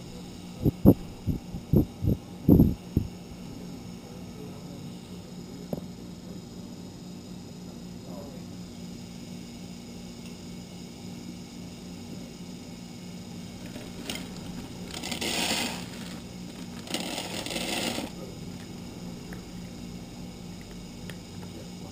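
A Le Bistro automatic portion-control pet feeder dispensing dry food into its bowl: two bursts of rattling, each a second or so long, about fourteen and seventeen seconds in. Before that, a few sharp knocks in the first three seconds, over a steady low hum.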